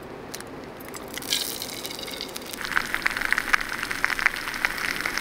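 An egg frying in bacon grease in a small Trangia mini frying pan, sizzling and crackling. The sizzle swells about a second in and thickens into dense spitting crackles from about midway, then stops right at the end. A steady low rush runs underneath.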